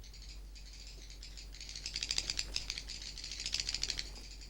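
Seychelles cave swiftlets giving their echolocation clicks: rapid rattling trains of clicks, swelling in two bursts, about one and a half seconds and three and a half seconds in.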